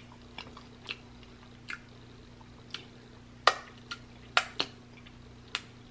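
Wet mouth sounds of someone licking sticky barbecue sauce off her fingers and eating: scattered short smacks and sucking clicks, a few louder ones in the second half.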